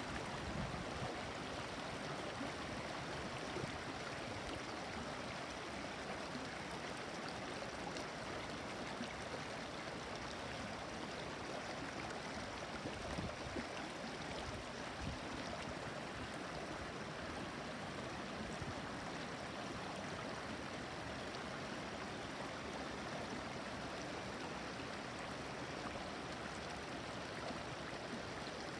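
A shallow, clear stream babbling over and between stones: a steady rush of running water with small riffles.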